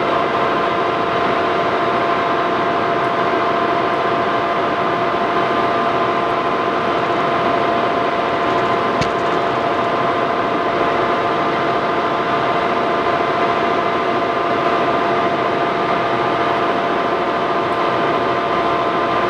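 Monarch Model 61 toolroom lathe running at its top spindle speed of 800 RPM, the chuck spinning on the headstock. A loud, steady whine of several held tones over an even hiss, unchanging throughout.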